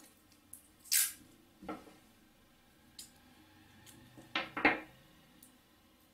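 Clear adhesive tape pulled off its roll with a short rasp about a second in, followed by softer handling, then scissors snipping the tape twice in quick succession.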